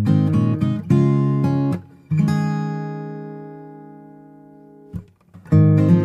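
Background music: acoustic guitar strumming, with a held chord ringing out and slowly fading about two seconds in, then the strumming picks up again near the end.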